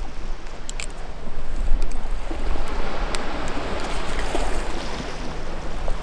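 Sea waves washing in, with wind rumbling on the microphone.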